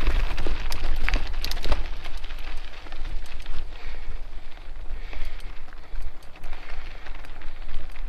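Mountain bike rolling fast along a dirt trail: wind buffeting the camera microphone under the crackle of tyres on dirt, with sharp rattling clicks from the bike over bumps, most in the first couple of seconds.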